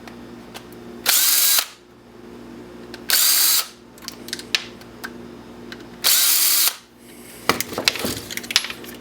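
Electric drill-driver motor running in three short bursts of about half a second each, spinning up quickly each time as it backs screws out of a plastic wiper-switch housing. Near the end come light clicks and rattles of small parts being handled.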